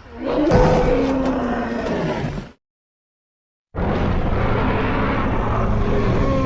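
Two animated-film creature roar sound effects, loud and rough, separated by about a second of dead silence.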